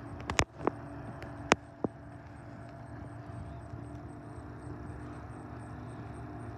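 Steady low engine hum with a faint steady tone from a lake freighter passing across the water. A few sharp clicks and knocks come in the first two seconds and are the loudest sounds.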